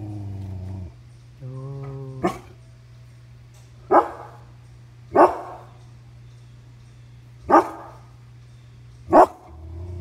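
Dog growling low, then barking five times, sharp single barks spaced one to two seconds apart, with another low growl at the end.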